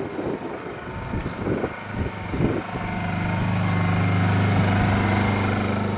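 Irregular low rumble, then a steady motor hum that swells in from about halfway through and eases slightly near the end, like a vehicle engine.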